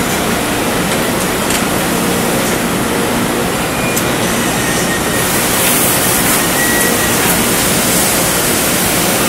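Ceramic tile glazing line running: a loud, steady machine noise from the motors and the belt conveyor's turning pulleys. A sharper hiss joins about halfway through.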